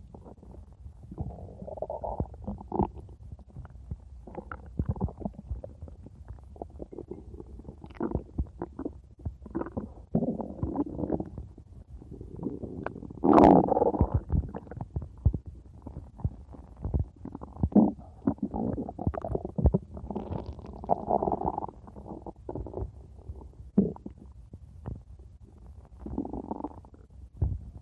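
Stomach growling and gurgling: an irregular run of squelches, pops and rumbles, with one louder, longer gurgle about halfway through.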